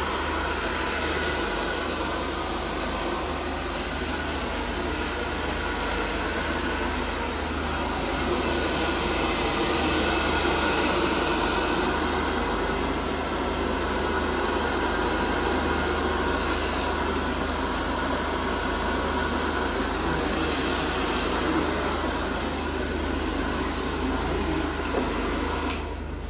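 Electric hair dryer blowing steadily, its hiss swelling and easing as it moves about, then stopping near the end.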